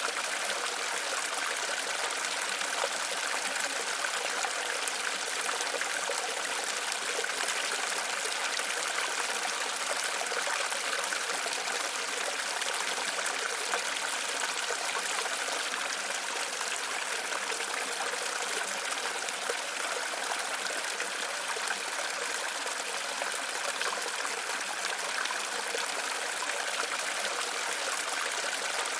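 Flowing water of a waterfall or stream, a steady even rushing without change.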